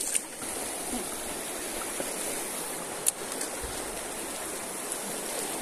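Stream water running steadily, with a single sharp click about three seconds in.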